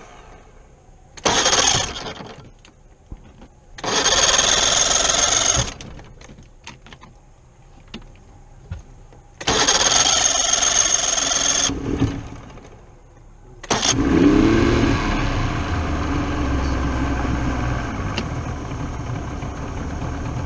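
Mercury 90 two-stroke outboard being cranked by its electric starter in three short tries that don't catch. On a fourth try about 14 seconds in it starts, revs briefly, and settles into steady running.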